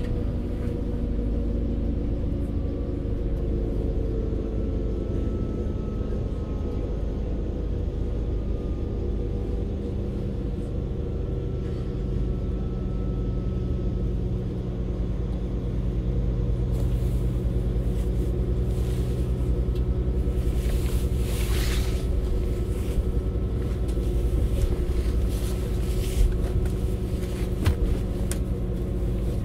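Cabin sound of a CAF Civity Class 196 diesel multiple unit on the move: a steady low rumble from the engine and wheels on the rails, with a few engine tones fading out over the first seconds. A rushing hiss swells about two-thirds of the way through, and a few sharp clicks come near the end.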